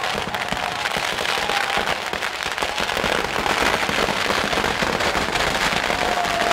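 Fireworks packed around a giant burning effigy going off in a dense, continuous crackle of rapid pops and bangs.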